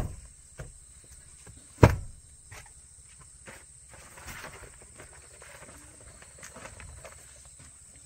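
Hyundai Palisade's second-row seat being folded down: one loud sharp clunk about two seconds in, with lighter clicks and knocks around it.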